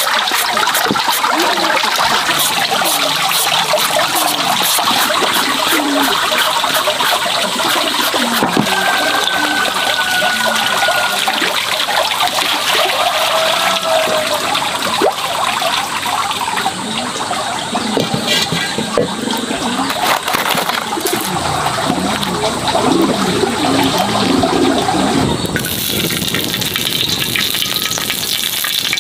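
Water running and splashing steadily. Near the end it gives way to a thinner, higher hiss.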